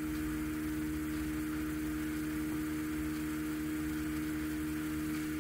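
Steady electrical hum with a strong fixed tone and several fainter ones, over a faint even hiss; nothing else happens.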